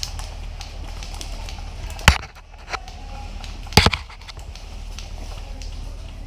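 Two sharp single cracks of airsoft gun shots, one about two seconds in and a louder one nearly two seconds later, over a steady low rumble of wind and handling noise.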